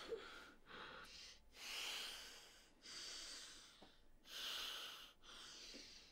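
A woman breathing hard and fast, faint, with about five ragged breaths roughly a second apart: the shaky breathing of someone feverish and shaken after waking with a start.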